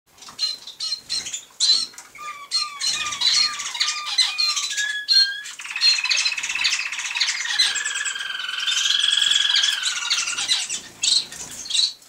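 Canary singing: a string of short, repeated chirping notes, then a long, rapid rolling trill that slowly falls in pitch and lasts about five seconds.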